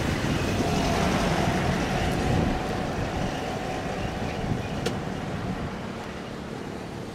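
Boeing 787 jet engines at taxi power heard from a distance: a steady rumble with a faint whine that grows quieter about two and a half seconds in. A single sharp click near five seconds.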